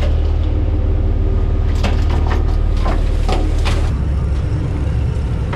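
Boat engine running steadily with a low rumble, with a few sharp knocks and clatters around two and three and a half seconds in; the rumble shifts slightly lower about four seconds in.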